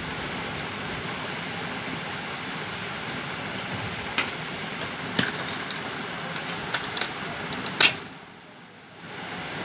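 Scattered sharp plastic clicks and knocks as parts inside an opened Epson L130 inkjet printer are handled, over a steady background hiss. The clicks come from about four seconds in, and the loudest is just before eight seconds; the hiss then drops for about a second.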